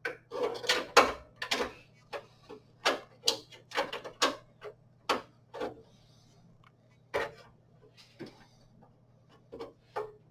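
Irregular sharp metallic clicks and taps of screws and a PCI slot cover being handled and fitted on a computer case, a dense, louder cluster in the first two seconds and scattered clicks after, over a faint steady hum.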